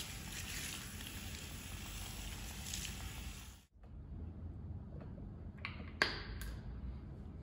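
Salon basin hand shower spraying water onto wet hair, a steady hiss that stops abruptly a little over halfway through. Then a few sharp clicks, the loudest about six seconds in, as a plastic shampoo bottle is handled.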